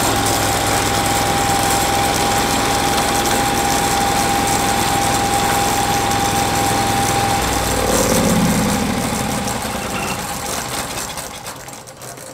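Norwood HD36V2 portable sawmill's engine running steadily with a high, steady whine; about seven seconds in the sound changes and swells briefly, then dies away toward the end.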